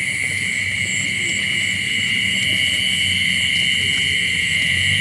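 Steady night chorus of insects, crickets trilling continuously in a high, even drone, over a low rumble.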